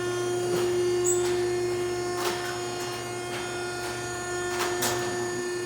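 Clothing baler running with a steady, high-pitched electric motor hum, with a few faint knocks now and then.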